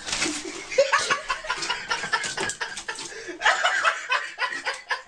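A person laughing and chuckling in choppy bursts.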